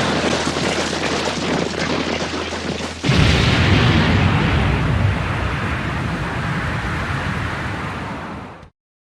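Evangelion anime sound effect for Eva Unit 01: a loud, noisy explosion-like boom already sounding, then a second boom striking suddenly about three seconds in with a heavy low end and slowly dying away, cut off to silence near the end.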